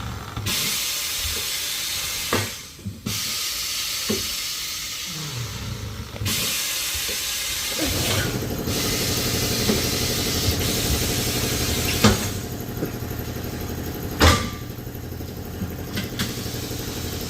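Compressed air hissing in long spurts at a tire changing machine, then from about the middle a motor starts and runs steadily with a low hum, with a few sharp metal clanks.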